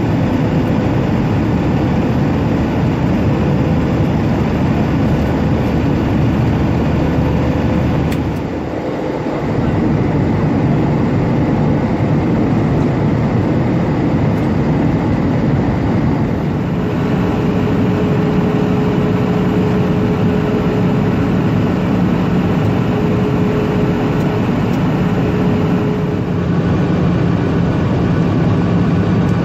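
Steady cabin noise of a jet airliner in cruise: a constant drone of engines and rushing air, heard from a window seat by the wing. The level dips briefly about eight seconds in, and a faint steady hum joins about halfway through.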